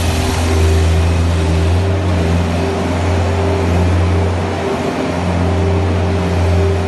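Bobcat skid-steer loader's engine running steadily under work, its note dipping briefly about two-thirds of the way through.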